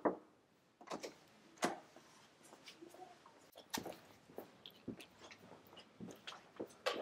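The tail of a knock on a door right at the start, then hands being rubbed together with alcohol hand gel: soft wet squishing broken by short scattered clicks and smacks.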